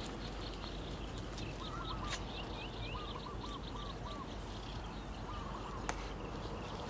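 Birds calling in short runs of quick repeated notes, about three bursts, with a few higher chirps, over a steady outdoor background hiss. Two sharp clicks, about 2 s and 6 s in.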